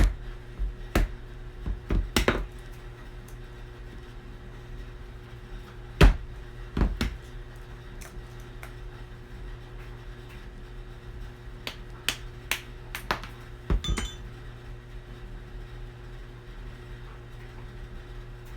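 Scattered sharp knocks and clicks of hand tools and small metal parts on a workbench, the loudest about six seconds in and a cluster near the end, as a bearing is worked out of a roller-blade wheel. A steady low hum runs underneath.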